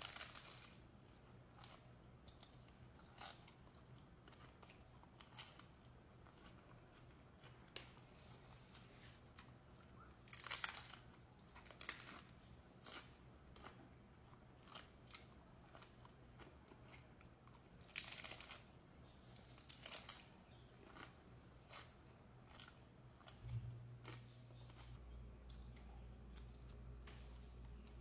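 Close-miked biting and chewing of crunchy hard taco shells: sharp crackling crunches every few seconds, with quieter chewing between them. In the last few seconds a low steady hum comes in underneath.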